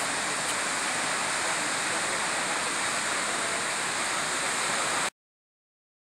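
A high waterfall plunging into a gorge: a steady rush of falling water that cuts off suddenly about five seconds in.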